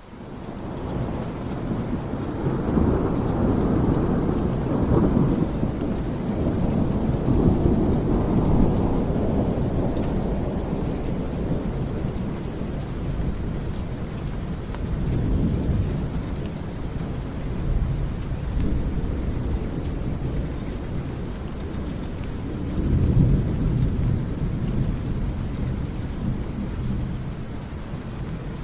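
Recorded rainstorm: steady rain with deep rolling rumbles that swell and fade several times. It fades in over the first second.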